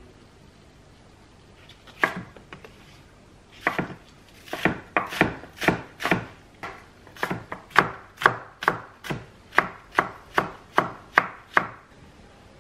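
Kitchen knife chopping green onions on a wooden cutting board. Two single cuts come first, then a steady run of about two to three chops a second that stops just before the end.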